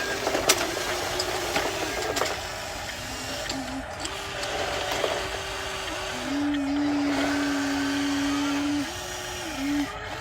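Small electric motors of a Huina 1594 RC excavator whining as its functions are worked, starting and stopping with the pitch stepping up and down. The longest, loudest run comes about six seconds in. A few sharp clicks sound in the first couple of seconds.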